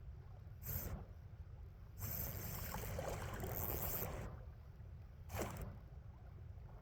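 Water splashing in three bursts, the longest in the middle, as a hooked steelhead thrashes while being brought to the net, over a steady low river rumble.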